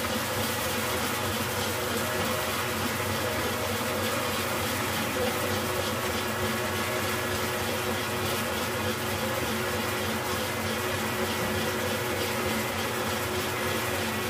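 Electric stand mixer running steadily, its wire whisk beating egg whites into meringue: an even motor whir with a constant hum.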